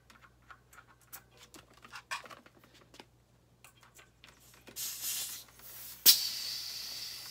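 Small clicks of a floor pump's head being fitted onto a bicycle tyre valve, a short hiss of air near five seconds, then a sharp pop a little after six seconds as the hose of the old floor pump pops off, followed by air hissing out.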